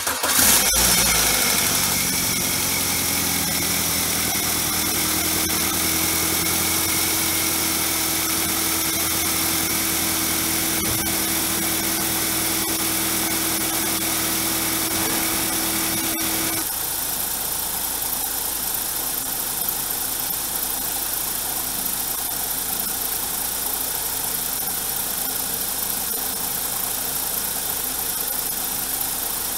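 BMW N42 four-cylinder engine catching and starting at the very beginning, then idling steadily. This is its first start after a new Valvetronic retainer spring, a cleaned and reassembled VANOS unit and re-timing. A steady hum that rises a little in pitch over the first few seconds cuts off about 16 seconds in, and the idle sound changes at that point.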